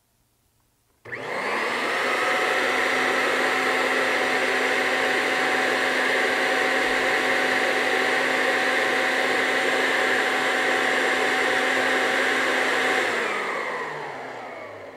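Kirby Avalir upright vacuum cleaner switched on about a second in, its motor running steadily with a high whine, then switched off near the end and winding down in falling pitch. It is pulling air through a half-full dust bag, which cuts its airflow at the hose to about 94 CFM.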